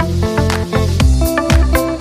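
Background music: an upbeat funk-style track with a steady beat and a heavy bass line.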